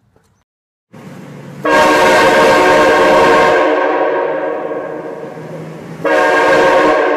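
Nathan AirChime K5LA five-chime train horn, fed from a 140 psi air tank, blasting a loud multi-note chord. The first blast, after a brief softer start, holds for about four seconds and slowly fades; a second blast begins near the end.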